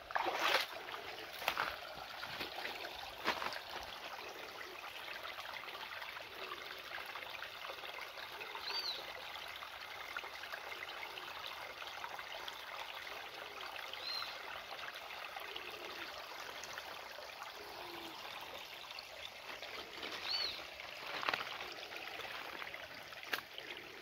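Small rocky creek trickling steadily over stones into a pool. Three short high chirps sound about a third, halfway and most of the way through, with a few light knocks near the start.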